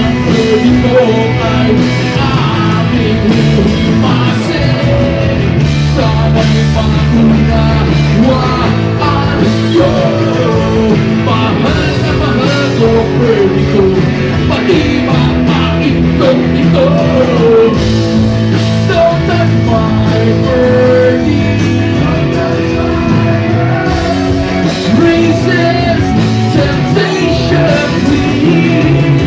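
Live rock band playing loudly, with a sung or lead melody over a steady bass and drums.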